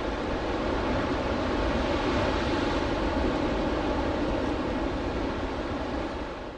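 Steady outdoor harbour ambience: wind on the microphone over a continuous low rumble, fading out at the very end.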